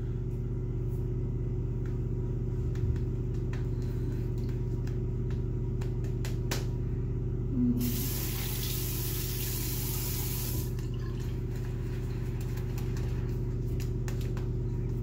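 Shaving brush working lather on a face, with faint scratchy brush strokes over a steady low hum. About eight seconds in, a water tap runs for about three seconds, most likely to wet the brush.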